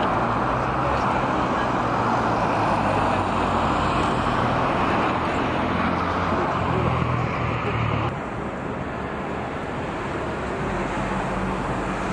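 City road traffic: the steady tyre and engine noise of cars passing, which drops quieter about eight seconds in.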